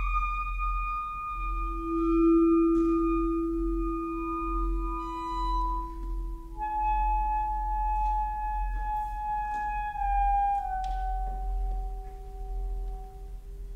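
Alto saxophone and vibraphone playing a slow passage of long held notes. The upper line steps down in pitch every few seconds, and a lower, ringing note sustains beneath it for several seconds.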